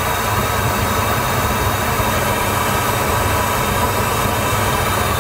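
Pink noise test signal played through a car's audio system and heard in the cabin: a steady, even hiss, heavier in the deep bass, where the cabin's pressure-chamber effect lifts the low end.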